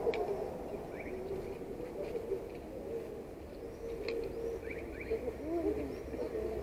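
City street ambience: a low steady hum of distant traffic, with small birds chirping now and then.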